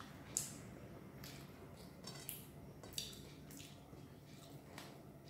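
Wet, sticky clicks and squelches from eating by hand: fingers mixing rice with curry on a plate, and chewing. Two louder smacks come about half a second in and about three seconds in.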